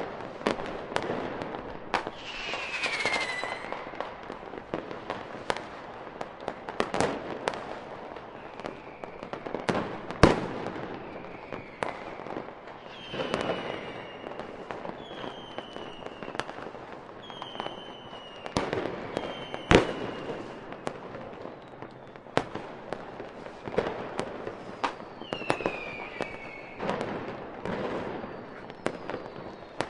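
Aerial fireworks going off: a steady run of bangs and crackling bursts, two much louder than the rest about ten and twenty seconds in, with short whistles falling in pitch heard among them.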